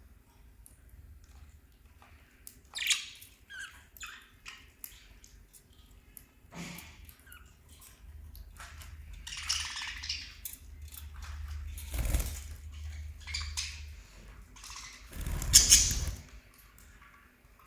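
Small pet parrots (lovebirds and budgerigars) making short scattered chirps, mixed with clicks and rustling, and two louder rustling knocks, about twelve seconds in and near the end.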